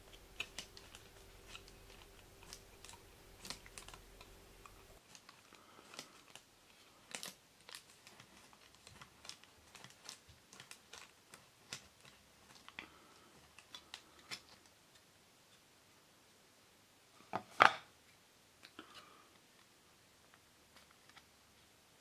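Pliers crimping the folded-over edge of a thin strip of tin-can sheet metal flat: scattered small clicks and crinkles of the metal, with one sharp, much louder click late on.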